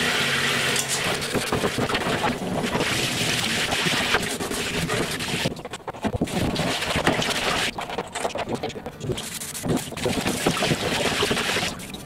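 Handheld shower head spraying water onto a dismantled tower fan's plastic grille and housing in a bathtub, rinsing off built-up dust. A steady rush of spray that breaks off briefly a few times as the spray is moved.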